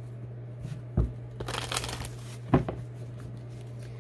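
A deck of tarot cards being handled and shuffled: a short rustle of cards, with two soft knocks about a second and two and a half seconds in, over a steady low hum.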